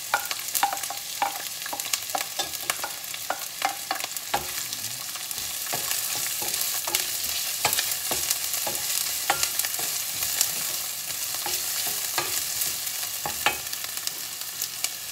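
Chopped garlic and onion sizzling in hot olive oil in a stainless steel skillet, with a wooden spoon knocking and scraping against the pan as they are stirred. The sizzle grows louder about a third of the way through.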